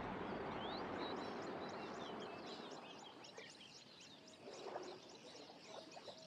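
Natural wildlife ambience: a dense chorus of many short, high chirps repeating several times a second, with a few longer mid-pitched calls, under a fading wash of sound at the start.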